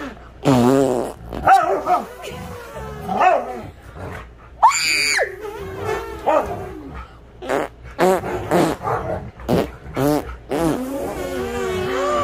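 A husky vocalizing: a string of short calls with wavering pitch, grumbling and barking, with a higher, sharper rising call about halfway through.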